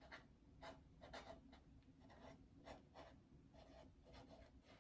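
Faint, short scratching strokes of a marker writing on a stick-on label on a food storage jar.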